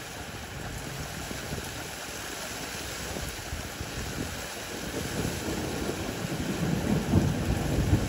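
Steady rain falling, with an uneven low rumble that grows louder over the last few seconds.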